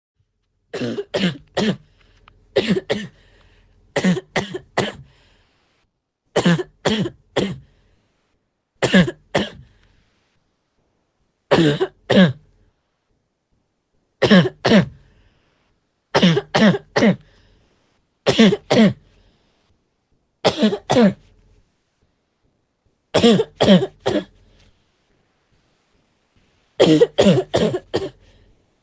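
A girl coughing in short fits of two to four coughs each, about a dozen fits a couple of seconds apart.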